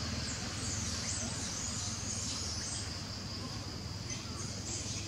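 Outdoor ambience: a steady high insect drone with chirping calls running through it, over a low steady hum.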